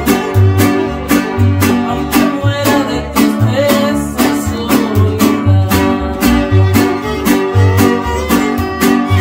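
Instrumental passage by a string band: violins play the melody over a steady strumming beat of guitars, with repeating bass notes underneath.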